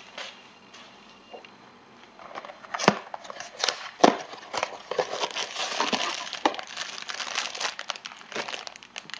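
Funko Mystery Minis blind-box packaging being opened by hand: a few sharp crackles, then dense crinkling of the foil bag from about halfway in.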